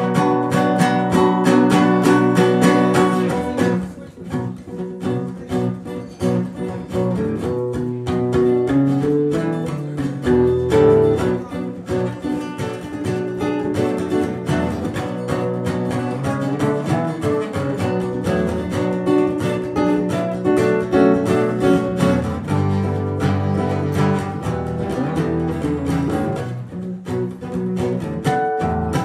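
Two acoustic guitars strumming and picking an instrumental passage of a song, with no singing.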